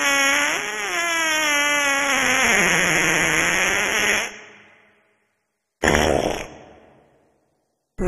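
A long, drawn-out fart with a wavering pitch that sinks lower near the end, stopping about four seconds in. About six seconds in comes a second, short, rougher fart that trails off.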